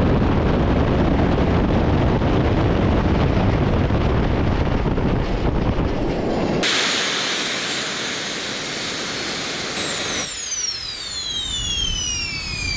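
Three small RC-type jet turbines on a go-kart run flat out on diesel as a heavy, steady roar. About seven seconds in, the sound turns to a sharp, high turbine whine. Near the end, the whines fall steadily in pitch as the turbines spool down.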